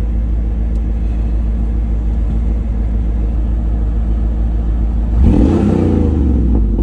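The 1996 Camaro SS's LT1 V8 running with a steady low rumble, then accelerating about five seconds in, its note rising and getting louder.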